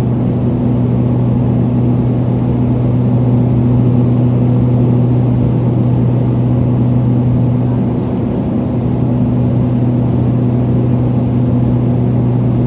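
Steady drone of a Harbin Y-12E's twin turboprop engines and propellers heard inside the cabin: a loud, deep hum with a second tone above it, easing slightly about eight seconds in.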